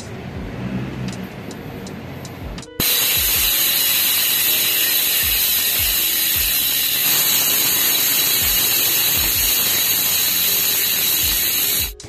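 Paps Pro-1 rear hub's freehub spinning, its pawls clicking over the ratchet so fast that they run together into a loud, steady buzz. The buzz starts abruptly about three seconds in. Before it, there are only a few light clicks.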